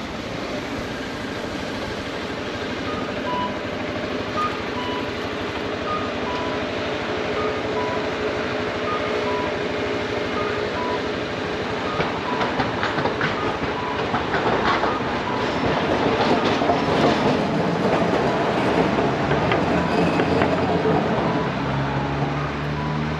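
Hiroshima streetcar rattling over its rails as it passes, growing louder through the middle and second half, over steady street traffic. A short electronic beep repeats about once every three-quarters of a second throughout.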